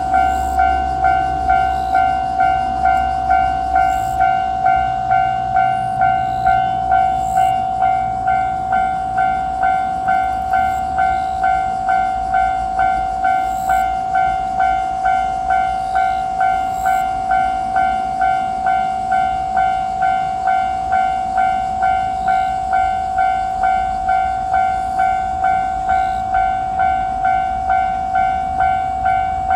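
Japanese railroad crossing alarm ringing its steady electronic "kan kan" bell, about two dings a second. A low rumble sits under it for the first eight seconds or so, then fades.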